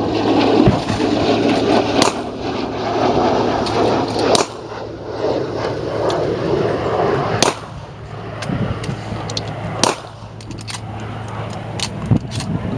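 Four gunshots, spaced two to three seconds apart, followed near the end by a quick run of fainter sharp cracks.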